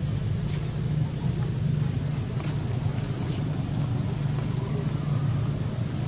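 Outdoor ambience: a steady low hum with a steady high insect-like buzz over it, and a few faint ticks.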